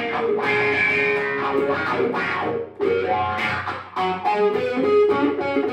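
Customised Stratocaster electric guitar played through an amp in melodic phrases, with brief pauses in the playing about two and a half and four seconds in.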